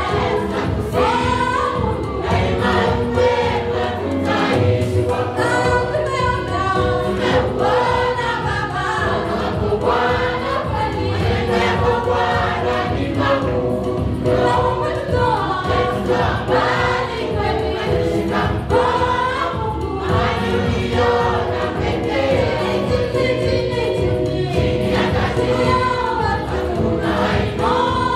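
Mixed choir singing a Swahili gospel song, a woman leading at the microphone with the choir singing along in full voice throughout.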